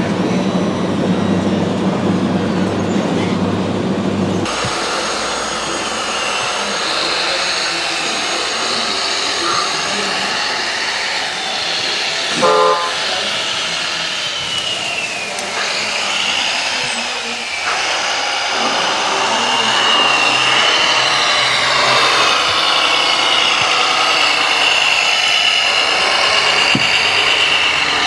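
Electric drive motors and hydraulic pumps of radio-controlled model trucks and construction machines whining, their pitch rising and falling as they drive and work. The sound changes abruptly about four seconds in, from a lower steady hum to the higher whining.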